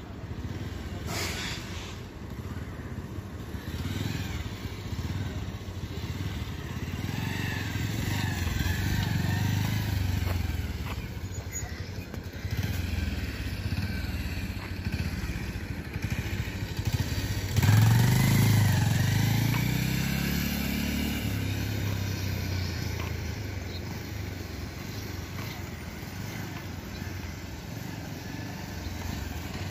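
Motorcycle engine running at low speed, its pitch and loudness rising and falling with the throttle. About eighteen seconds in it suddenly gets louder, its pitch sliding, then slowly fades.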